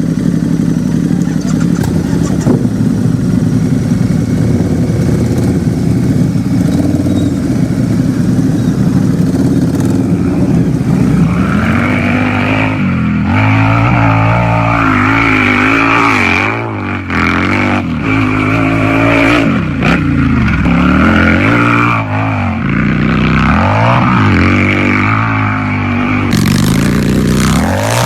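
Harley-Davidson V-twin motorcycle engine idling steadily, then revved again and again from about eleven seconds in, its pitch rising and falling with each twist of the throttle.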